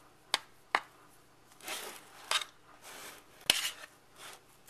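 Metal knife clinking and scraping against a metal loaf pan while it presses and spreads crumbly gluten-free dough: about four sharp clinks between soft scrapes.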